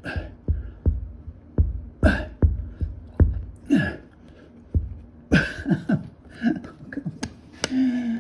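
Dull thumps of hands pounding and pushing a windshield into its rubber gasket from inside the car, coming about every half second at first, with heavy breaths and strained grunts of effort in between.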